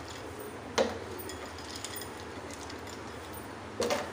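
Ice cubes dropped into a stainless steel pot of blended milk coffee: a sharp clink with a brief ring about a second in, then another few clinks near the end.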